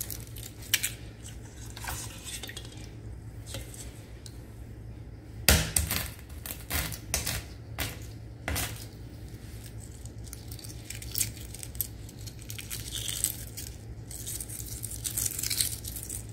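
Hard-boiled eggs being cracked and peeled by hand over a stainless steel pot of water: a string of sharp clicks and taps of egg and shell against the pot and a glass bowl, the loudest about five and a half seconds in.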